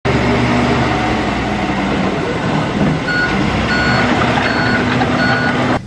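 Heavy vehicle's engine running loudly, with its reversing alarm sounding four short high beeps from about halfway through, as machinery works on clearing flood mud.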